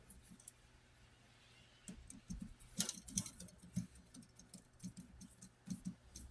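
Faint, irregular small ticks and clicks of a screwdriver and copper wire being worked on a receptacle's brass terminal screw, starting about two seconds in.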